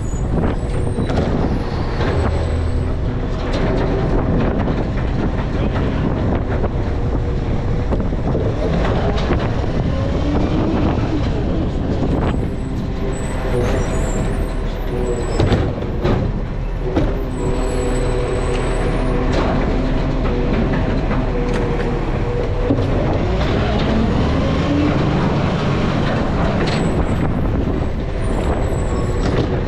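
Garbage truck running, its engine droning steadily with a few sharp knocks and clanks, the clearest near the middle and near the end.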